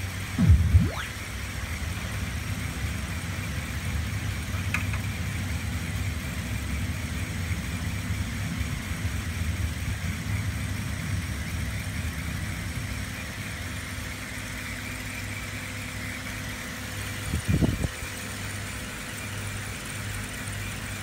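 Electric motors of a Lego Technic model whirring steadily as its arm is worked. There are two short knocks, one about half a second in and one near the end.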